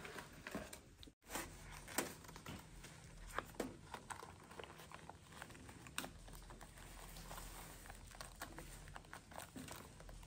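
Scattered light clicks, taps and rustles of things being handled close by, over a faint low hum.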